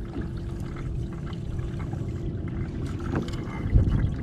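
Water sloshing and lapping against a fishing kayak's hull, with a faint steady hum for most of it and a louder low rumble near the end.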